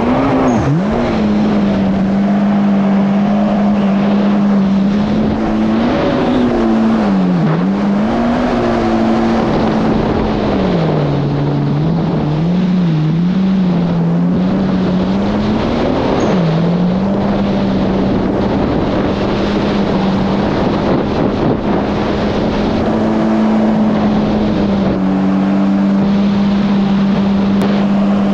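Yamaha GP1800R SVHO jet ski's supercharged engine running at a steady cruise, its note dropping and climbing back a few times as the throttle eases off and comes back on, over a steady rush of wind and water.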